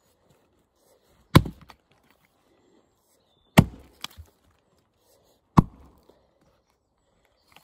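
Three chops of a Tuatahi axe's steel head biting into a log, about two seconds apart. Each sharp strike is followed by a few small knocks.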